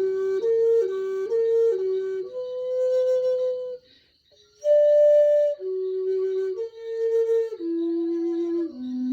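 Large bamboo flute playing a slow solo melody in its low register. It opens with a quick back-and-forth between two notes, then moves to longer held notes, breaks off for a short breath about four seconds in, and dips to a low note near the end.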